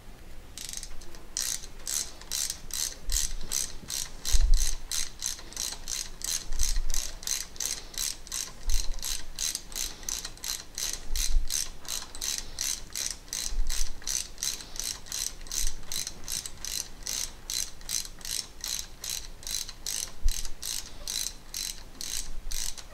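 Hex driver turning a pump's pressure-relief set screw: an even run of sharp clicks, about three a second, with a dull knock every couple of seconds as the hand works the handle round.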